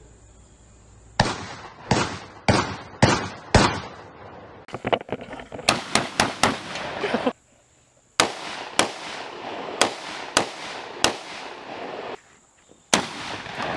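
A series of close to twenty sharp bangs at irregular spacing, some single and some in quick clusters, each ringing out briefly. Two short gaps of near silence interrupt them.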